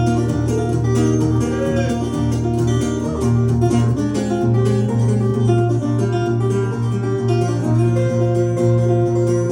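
Acoustic guitar playing an instrumental break in a folk ballad, a steady plucked bass under a busy melody line.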